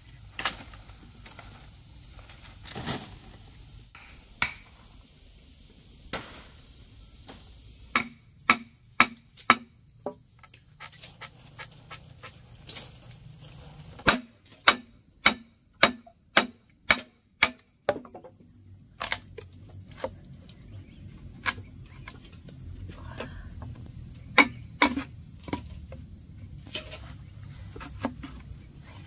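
A steady high insect drone, made of two even tones, runs throughout. Over it come sharp knocks, the loudest sounds: runs of about two a second around eight seconds in and again from about fourteen to seventeen seconds, with single knocks scattered between.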